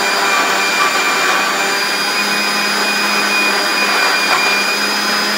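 Prestige Iris 750-watt mixer grinder running steadily with its juicer jar fitted, blending apple pieces into juice.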